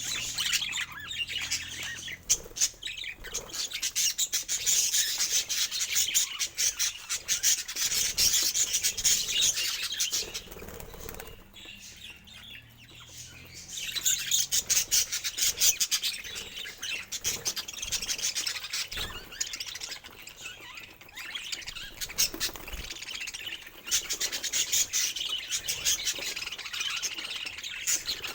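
Budgies chirping and chattering while eating, with fast crunching clicks from their beaks on food. The sound thins out briefly about eleven seconds in, then picks up again.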